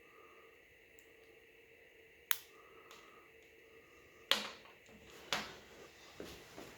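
Sharp clicks of small tools and tiny smartwatch parts being handled and set down: three distinct clicks, the loudest about halfway through, with softer ticks and handling noise between them, over a faint steady electrical hum.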